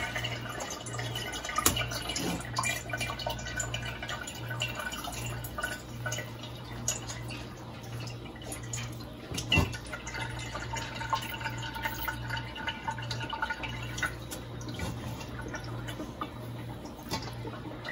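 Whey dripping and trickling out of a hand-squeezed cheesecloth bag of chèvre curd into a stainless steel colander and pot, in many small irregular drips and splashes, with one sharper tap about halfway through. A steady low hum runs underneath.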